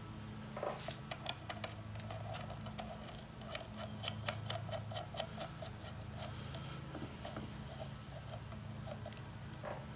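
Faint clicks and light metallic taps of a portable band saw's wheel being handled, turned and pressed onto its hub to line up with the drive sprocket, with a run of light ticks about three a second in the middle. A low steady hum runs underneath.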